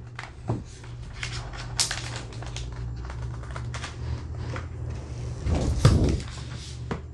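Laptop packaging being handled and opened: a run of small clicks, taps and rustles, with a louder thump about six seconds in, over a steady low hum.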